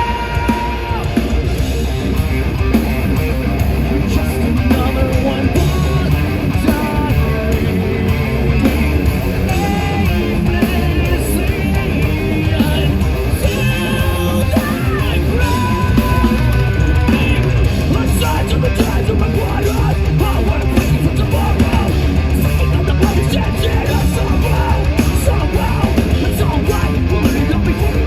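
Progressive metal band playing live at full volume: distorted electric guitars, bass and drums, with singing.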